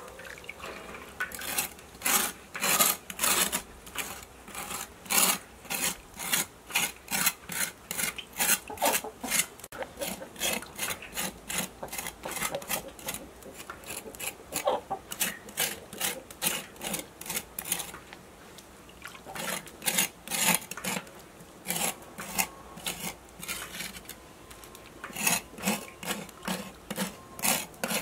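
A cleaver blade scraping the soot-blackened skin of smoked cured pork, cleaning it over a basin of water. It goes in short, even strokes about two a second, pausing briefly twice in the second half.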